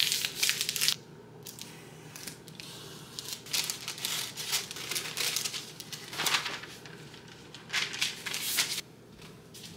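Parchment paper rustling and crinkling in irregular bursts as sheets are folded and handled, with scissors cutting through the paper partway through.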